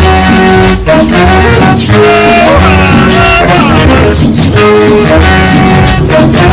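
Loud Latin dance music played over a sound system: a steady pulsing bass, a repeating melody and shaker percussion.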